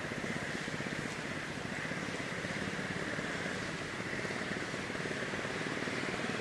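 Steady outdoor background noise: a constant high-pitched drone over a low rumble, with no distinct events.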